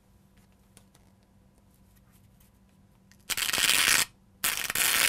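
Sewing needle poked through the tip of a paper cone and scratched across a rough surface: a loud rasping scratch, louder because the needle sets the whole paper cone vibrating. One short stroke starts about three seconds in, a brief pause follows, then a second longer scratch begins.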